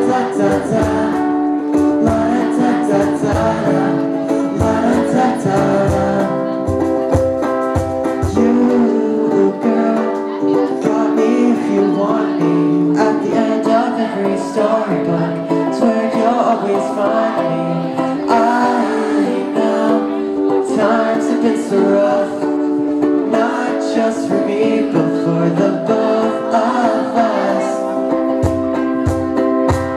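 Live acoustic song played on a ukulele, strummed over keyboard chords, heard through a handheld recording from the audience.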